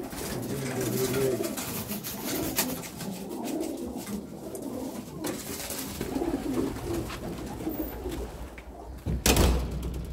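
Domestic pigeons cooing in the loft, several low warbling coos overlapping and fading out about eight seconds in. Near the end one loud, sudden thump.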